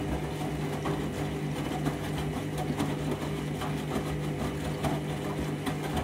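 Candy front-loading washing machine running a rinse: the drum-drive motor hums steadily as the drum turns, with water and suds sloshing and faint irregular clicks.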